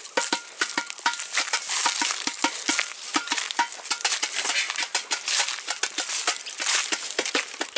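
Dry leaves and twigs crunching and crackling in quick, irregular clicks, as of footsteps through dry forest litter, with a few short high chirps in the first second or so.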